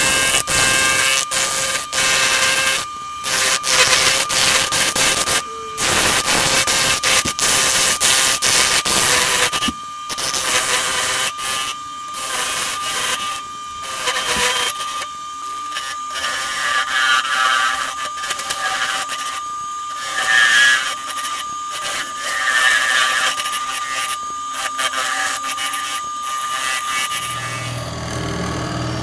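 A gouge cutting a spinning canary wood and bloodwood blank on a wood lathe: a loud hissing cut, broken again and again by short gaps as the tool lifts off, over a steady high whine. Near the end the cutting stops and a steady low hum takes over.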